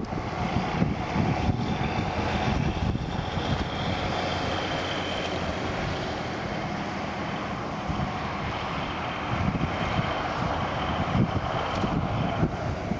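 Shallow creek running over gravel, with wind rumbling unevenly across the microphone.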